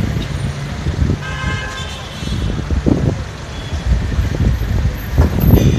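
City street traffic rumbling below, with a vehicle horn sounding once for about a second, a little over a second in.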